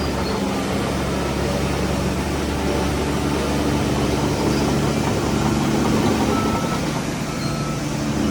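Heavy diesel engine running steadily under load, a deep even drone with a dip in level near the end.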